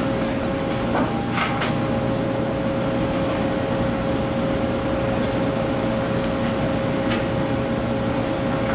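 Steady drone of heavy machinery running, a constant mid-pitched whine over a low rumble, with a few short clicks scattered through it.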